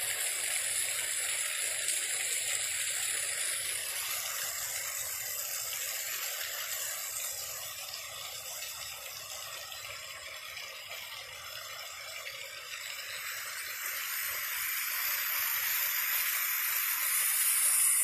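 Steady rush of a mountain waterfall, water falling onto rocks; it fades a little midway and grows louder near the end.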